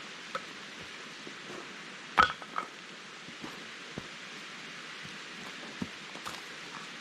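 Steady rushing of a mountain stream, with scattered light clicks and knocks; the loudest is a sharp click about two seconds in.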